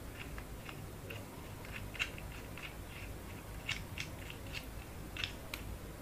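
Small mount parts clicking and scraping in the hands as an accessory is fitted into a mounting hole on a phone gimbal rig. The ticks come irregularly and fairly faintly throughout, with a sharper click about two seconds in.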